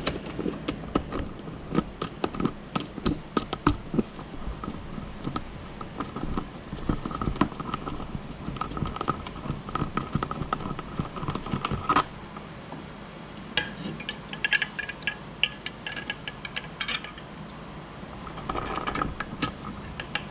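Hand work on a metal horn bracket: a string of irregular metal clinks, knocks and tool clicks as the horn is bolted into place, with clusters of quicker ticking in the second half.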